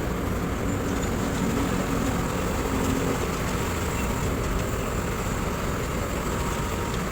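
Kobelco SK200 excavator's diesel engine running steadily under a continuous rumbling noise.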